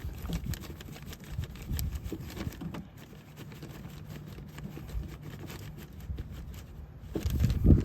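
Irregular small clicks and taps of a screwdriver and metal parts as the door lock actuator's mounting screws are fitted inside the car door, with a louder cluster of knocks near the end.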